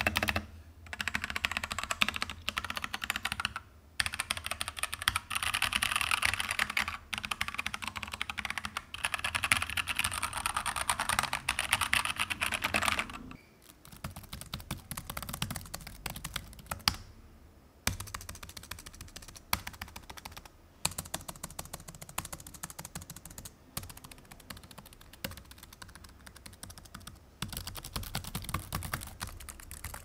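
Typing on a Keychron K2 V2 mechanical keyboard with tactile Gateron Brown switches: fast, dense key clicks for about the first 13 seconds. After a short pause, typing on a MacBook's built-in keyboard follows, with quieter, lighter key clicks.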